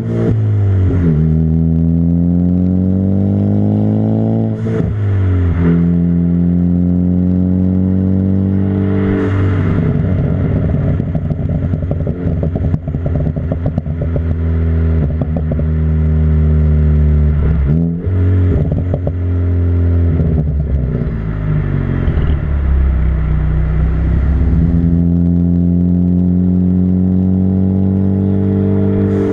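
Ford Focus ST's turbocharged engine through a catless MBRP turboback exhaust, heard at the tailpipe, driving through the gears: the note climbs with revs and drops sharply at each shift, holding steady in between. Through the middle it is mixed with crackles and pops from the Stratified tune.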